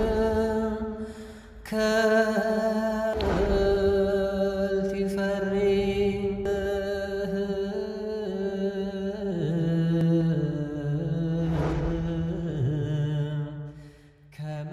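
Chanted intro music: a voice singing in long, drawn-out held notes that step down in pitch, with a brief break about a second and a half in.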